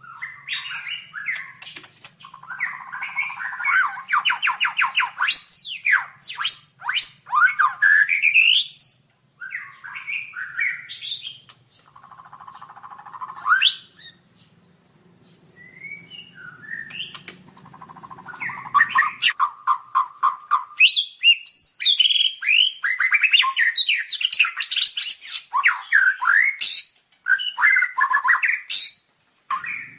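White-rumped shama (murai batu) singing: bursts of rapid trills and quick rising and falling whistles, broken by short pauses.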